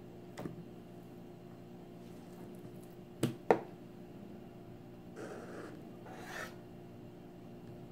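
Two sharp knocks of a chef's knife against a wooden cutting board, then two short scrapes as the blade is drawn flat along a raw cojinova fillet against the board.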